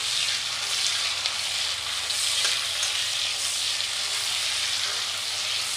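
Sliced onions and bay leaves sizzling in hot oil in an iron kadhai as they are fried, with a metal spatula stirring them. The sizzle is a steady hiss, with a few faint ticks from the spatula.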